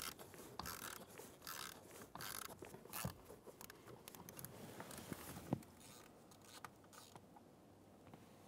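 Hand ratchet with an 8mm socket clicking in short rasping bursts on its back strokes as the blower motor's screws are loosened. The bursts come about twice a second and stop about halfway through, leaving a few faint clicks.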